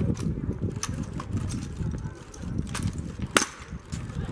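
Sharp slaps and clacks of drill rifles being caught and handled during rifle spins and tosses, a few separate strikes with the loudest about three and a half seconds in, over a low rumble.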